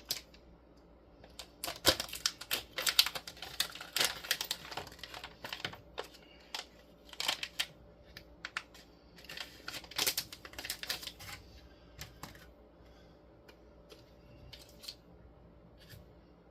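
Rapid clicking and tapping of small hard parts being handled on a workbench. It comes in two busy runs, about two seconds in and again around ten seconds, with a few scattered clicks afterward.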